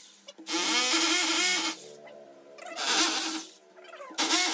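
Corded hammer drill boring into a wall in three bursts, its motor running with a steady tone under the grinding of the bit, with short pauses between the bursts: drilling the holes for the anchor fasteners of a TV wall mount.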